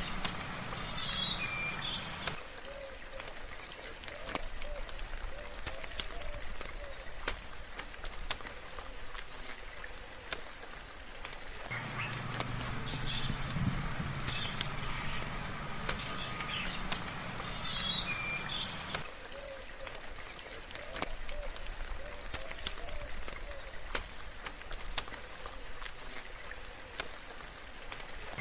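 Birds chirping over a steady patter of light rain, with scattered sharp drips. The same stretch of about 16–17 seconds repeats as a loop.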